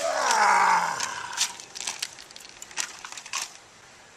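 Aftermath of a sledgehammer blow on a plastic coffee maker: a ringing that falls in pitch for about a second, then scattered clatters of broken pieces.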